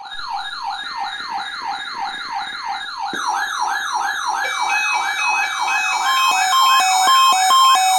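Electronic siren in a fast yelp, a rising-and-falling wail about three times a second, growing louder; about six seconds in, an alternating high-low two-note beep joins it.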